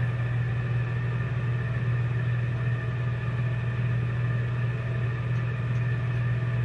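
Steady low mechanical hum with faint steady tones above it, unchanging throughout.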